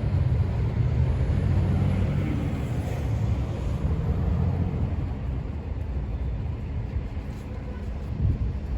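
Low, steady rumble of a passing vehicle, easing off after about five seconds, with a single short knock near the end.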